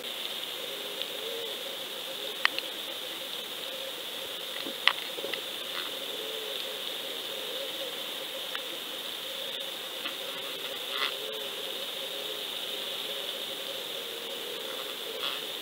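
Underwater fishing camera (GoFish Cam) on the line at depth, picking up a steady hiss and faint hum from inside its sealed housing, with a few short sharp clicks.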